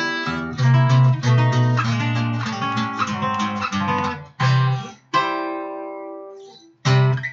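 Acoustic guitar music: strummed chords, then a chord left ringing and fading away, and one last short strum near the end.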